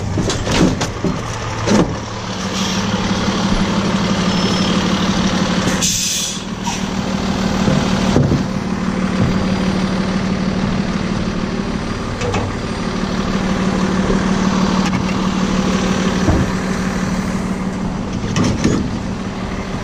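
A truck's engine running with a steady low hum, a few knocks near the start, and one short sharp hiss about six seconds in.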